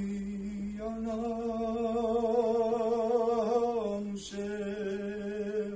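A man singing unaccompanied, drawing out long held notes with a wavering ornament, with a short break about four seconds in before the next held note.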